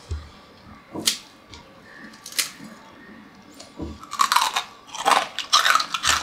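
Crisp fried chakli being crunched: two sharp snaps, then a dense run of crunches in the last two seconds.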